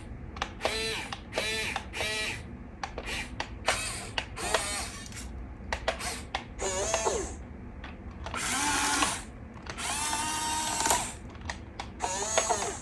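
Huina RC excavator's small electric gear motors whirring in short bursts as the arm and bucket are worked, each burst rising and falling in pitch, with a couple of longer runs in the second half.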